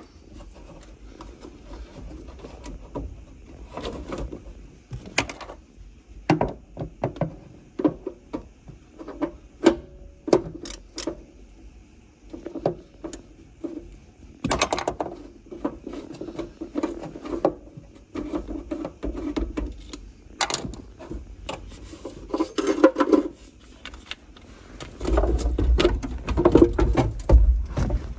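Hand tools working the 10 mm nuts on a van's 12 V battery terminals: a steady run of small metallic clicks and clinks against the battery and its clamps. Near the end come louder knocks and rubbing as the battery is handled in its tray.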